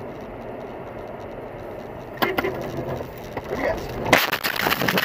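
Car crash heard from inside the car: steady road and engine noise, a sharp knock about two seconds in, then a loud impact about four seconds in followed by crunching and rattling as the car goes over.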